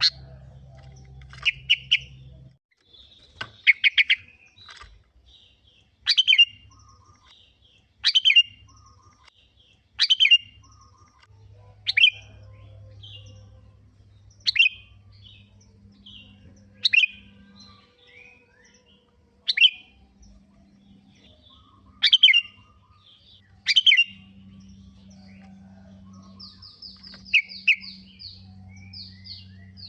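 Sooty-headed bulbul (kutilang) singing: short, loud chirping phrases repeated about every two seconds, with a quick run of higher notes near the end.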